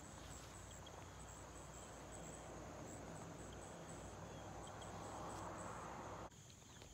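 Faint, steady chirring of insects in a high band, over a soft even hiss that swells slightly and then drops off abruptly about six seconds in.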